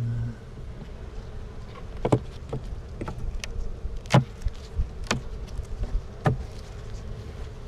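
Honeybees buzzing around an opened hive, a steady hum, with several sharp clicks or knocks scattered from about two seconds in.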